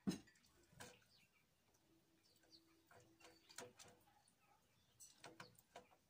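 Scattered soft taps and knocks of a great tit's feet and beak on a cardboard feeder box and the bread in it, with one sharper thump right at the start and a small cluster of taps near the end as the bird lands on the bread.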